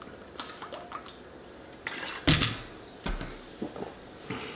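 Gulping and sloshing of soda from a 2-liter plastic bottle, with small wet swallowing sounds. About two seconds in comes a sudden, louder knock as the bottle is set down on the wooden table.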